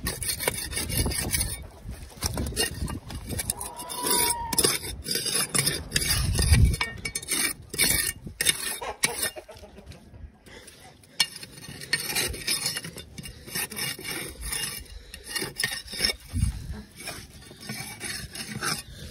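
Irregular scraping and rubbing strokes of caked dirt being scraped off a tractor.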